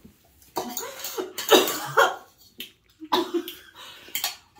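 Several short coughs from a person whose throat is burning from very spicy instant noodles, with light clinks of a fork against a bowl.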